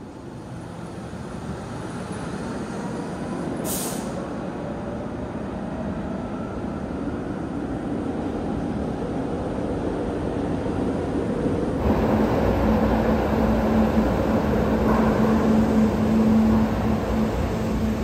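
SEPTA subway-surface trolleys (Kawasaki light-rail cars) running on the rails in an underground station, a rumble that grows louder. There is a brief hiss about four seconds in. In the second half an approaching trolley adds a steady low hum that stops shortly before the end.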